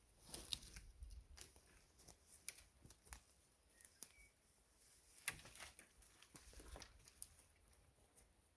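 Faint, scattered rustles and sharp little clicks of camping gear being handled during a hammock camp setup, a few louder ticks standing out now and then.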